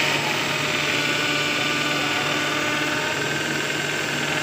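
INGCO cordless drill running steadily as its bit bores a hole into a wall.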